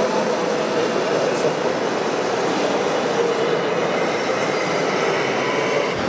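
Radio-controlled model tractor driving, its electric drive motor and gearbox giving a steady whine over a constant background hiss.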